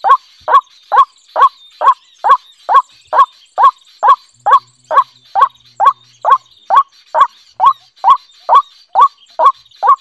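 White-breasted waterhen calling: a long, monotonous series of short, loud notes, evenly spaced at a little over two a second.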